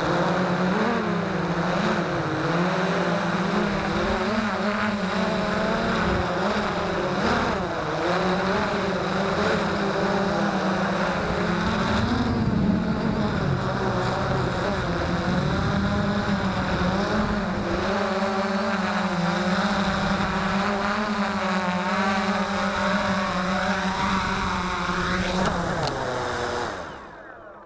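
Freex Skyview quadcopter's motors and propellers whining steadily in flight, the pitch wavering up and down as the drone manoeuvres, picked up by the onboard camera. Near the end the sound drops away sharply.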